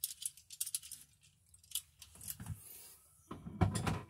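Light metallic clicks and small rattles of hand tools and stiff copper wire being handled, with a louder clatter near the end.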